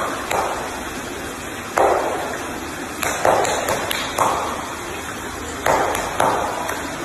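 Water splashing and sloshing in a tank around a seal pup: a steady wash broken by several sudden louder splashes at irregular moments.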